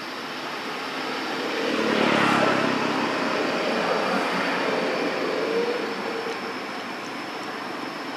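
A motor vehicle's engine passing by, growing louder to a peak about two seconds in and then slowly fading.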